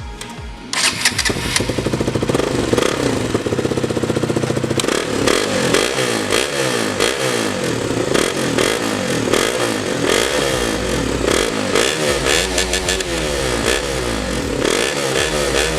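KTM 200 Duke's single-cylinder engine starting up about a second in and idling, then revved again and again with the throttle, the pitch rising and falling about once a second, run right after a fresh oil and filter change.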